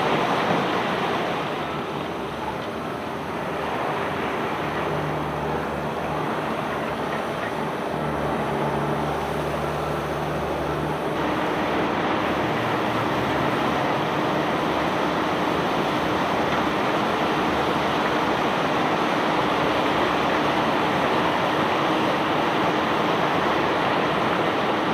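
Steady rushing noise of a self-unloading barge discharging bulk cargo, with a low machinery hum underneath that shifts to a higher pitch about eleven seconds in.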